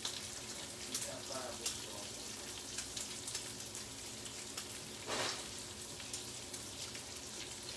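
Chopped bacon sizzling in a large frying pan: a steady high hiss with frequent small pops of spitting fat, and a short louder rasp about five seconds in.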